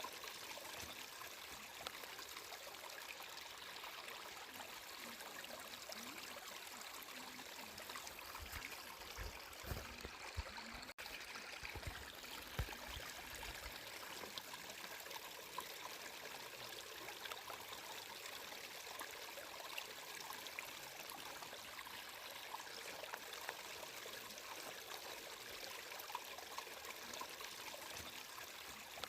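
Flowing water trickling and babbling steadily, like a small stream, with a few low thumps between about eight and fourteen seconds in.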